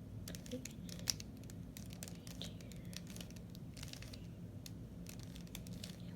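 3x3 Rubik's Cube being twisted by hand: irregular quick plastic clicks and scrapes as its layers turn, with one sharper click about a second in.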